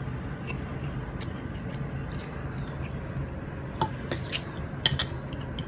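Metal fork and spoon clinking against a bowl of noodles, a few sharp clinks in quick succession near the end, over a steady low hum.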